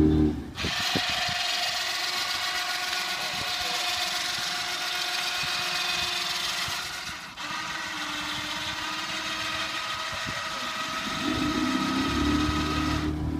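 Aquatic weed harvester's engine and hydraulic drive running with a steady, high whine as the machine unloads its basket of cut weeds onto the bank. The sound breaks off briefly about seven seconds in, then carries on.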